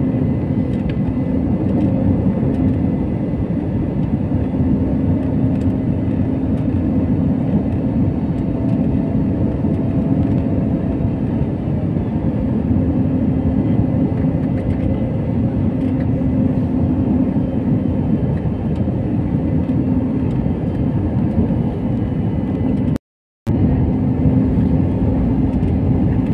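Steady noise of an Airbus airliner's turbofan engines and rushing airflow heard inside the cabin in flight, with a constant low hum running through it. The sound cuts out completely for about half a second near the end.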